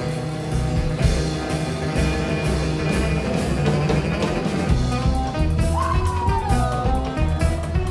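Live band playing an instrumental passage on accordion, acoustic guitar, upright bass and drum kit, with steady drum hits under held accordion notes. About six seconds in, one note slides down in pitch.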